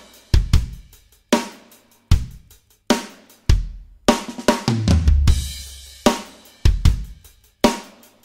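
Drum kit playing separate kick-and-snare hits, roughly one a second with each left to ring out, with cymbal crashes on the first hit and again about four to five seconds in. It is the arranger keyboard's sampled 'Live Drum' kit running through a compressor on a first test.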